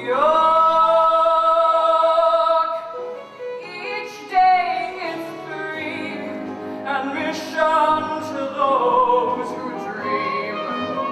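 A woman singing a Broadway show tune with a pit orchestra. She holds one long note for about three seconds at the start, then sings further phrases over the orchestra.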